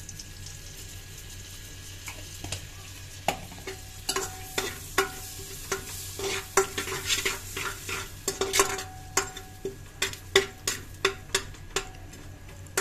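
Cumin seeds sizzling in melted butter in an aluminium pressure cooker. A few seconds in, a steel ladle starts stirring and knocking against the pot, about three sharp clinks a second, each leaving a short metallic ring.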